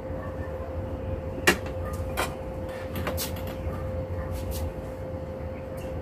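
A few sharp knocks and clacks, the loudest about a second and a half in and two more within the next two seconds, over a steady hum.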